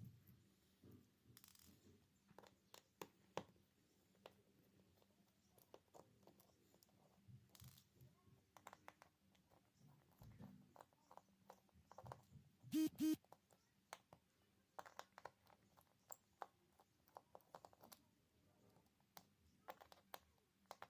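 Faint scattered clicks and scrapes of small hand tools working on a smartphone's internals, with two short ringing metallic clinks in quick succession about halfway through.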